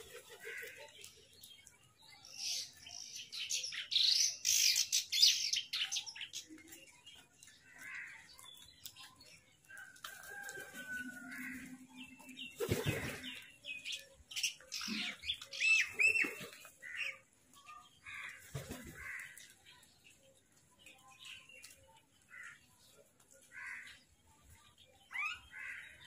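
A flock of house crows calling at irregular intervals with harsh caws, loudest in a cluster about three to six seconds in, mixed with the flutter of wingbeats as birds hop and take off.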